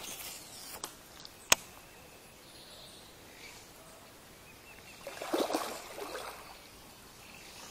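A sharp click about a second and a half in. Then, about five seconds in, a brief burst of splashing as a trahira swirls at the lure on the pond's surface.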